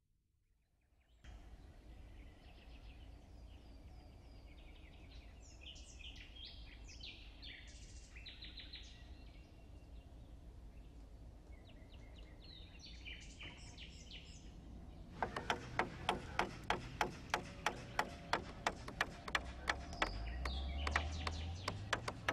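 Birds chirping and singing over a low steady outdoor hum. About two-thirds of the way in, steady hammering on timber starts, about two sharp strikes a second.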